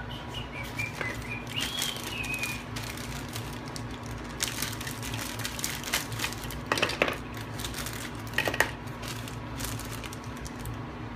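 Clear plastic zip-lock bag rustling and crinkling as it is opened and the small plastic parts inside are handled, with a few sharp clicks of hard plastic pieces knocking together, the loudest about two thirds and three quarters of the way through. A steady low hum runs underneath.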